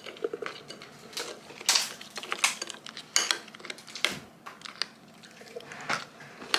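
Cutlery clinking and scraping against a dish as a snack is scooped up: a string of scattered light clicks.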